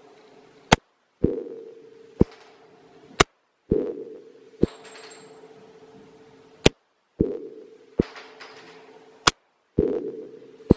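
Semi-automatic pistol shots fired one at a time in an indoor range, a sharp crack with a decaying echo about every one to two and a half seconds, with brief high metallic pings from the ejected brass. The sound cuts off abruptly between some of the shots.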